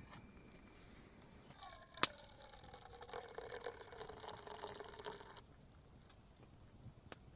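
Liquid being poured into a container for about four seconds, its pitch slowly falling, with a sharp click just before the pour begins.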